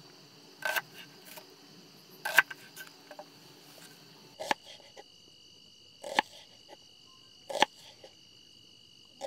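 Folding knife slicing a red onion on a wooden cutting board: a short knock of the blade on the board about every second and a half. Underneath runs a steady high trill of crickets.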